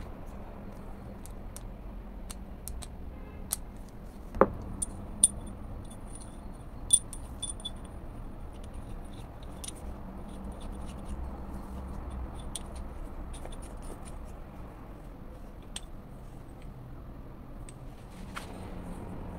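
Small metal clicks and clinks of a homemade steel tap wrench being handled, its knurled screws turned and a steel handle rod fitted through it. A few sharper clicks come between about four and seven seconds in, over a steady low background hum.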